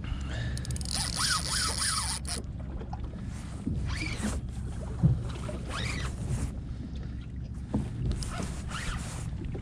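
Spinning reel being cranked while a hooked striped bass pulls against the bent rod, with the drag giving a zipping buzz about a second in. Steady wind and water noise runs underneath, and there is a single knock about five seconds in.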